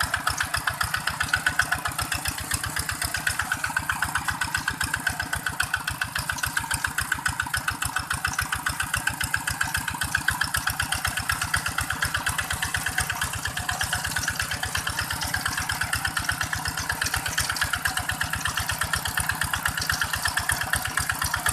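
Single-cylinder diesel engine of a two-wheel walking tractor running steadily under load as it pulls its cage wheels through a flooded rice paddy, a fast, even chugging.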